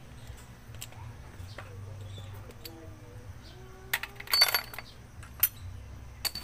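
Small loose metal parts and tools clinking as they are picked up and handled, a quick cluster of clinks about four seconds in and single sharp clicks after it, over a low steady background hum.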